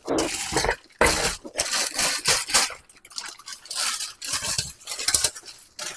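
Crab legs being handled in a clear plastic bag: crinkling plastic and hard shells clacking against each other in irregular bursts.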